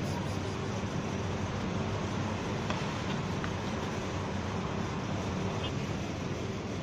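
Steady low background drone with hiss, unchanging throughout.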